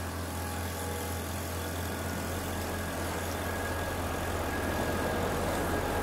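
An engine running steadily: a constant low hum under an even hiss.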